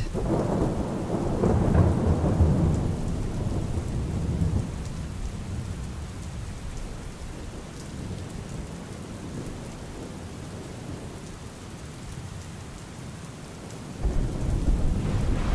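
Steady rain falling with thunder rumbling: a long low roll at the start that fades away over several seconds, and another roll near the end.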